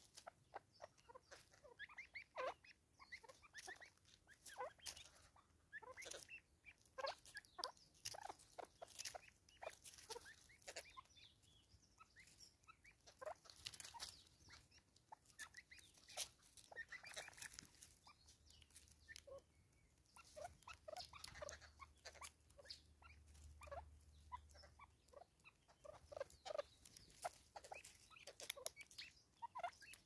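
Natal spurfowl pecking at birdseed on a wooden stump feeder: a quiet, irregular scatter of quick taps and scratches.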